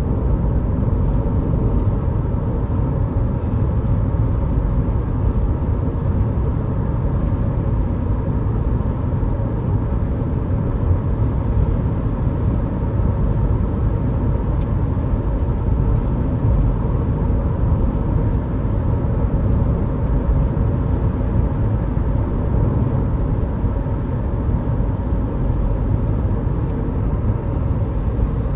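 Steady road and engine noise of a moving car, a low rumble that holds even throughout.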